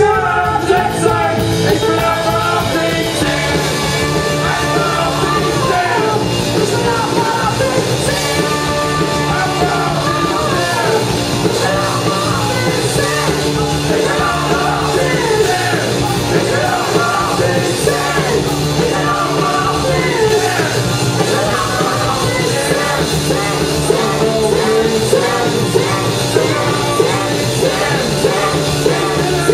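Live rock band playing a song: electric guitars, bass guitar and drums, with sung vocals.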